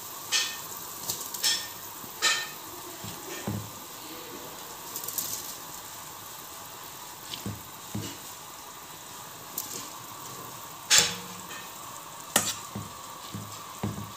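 Spiced water boiling hard in a large hard-anodised cooking pot as rice is added for biryani, a steady bubbling hiss. Scattered sharp clicks and knocks over it, the two loudest near the end.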